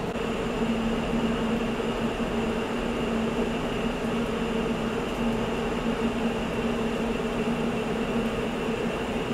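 Metal lathe running, its carbide turning tool cutting a steel shaft: a steady mechanical hum with a high whine over it.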